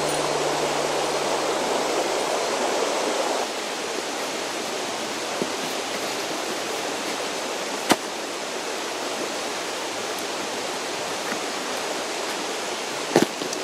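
Mountain stream rushing steadily. A low steady hum under it stops abruptly about three and a half seconds in, and a few sharp clicks or knocks come through later, the loudest about eight seconds in and near the end.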